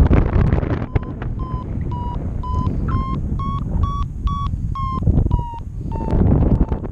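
Paragliding variometer beeping in short, even pips about twice a second, the tone that signals the wing is climbing in lift; the pitch drops slightly near the end. Wind rushes over the microphone throughout.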